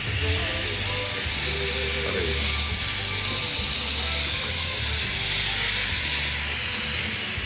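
Bacon-wrapped medallions sizzling steadily on a hot griddle pan as they are turned over with tongs and a fork.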